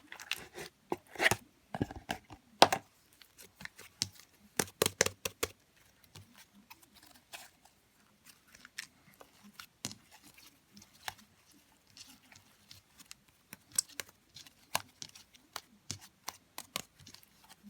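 Irregular clicks and taps, as of small objects being handled, coming thick in the first five seconds or so and more scattered after.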